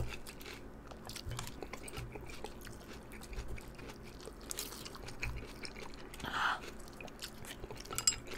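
Close-up eating sounds of spicy Korean instant noodles: wet chewing and slurping, with many small mouth clicks and a short louder slurp about six seconds in.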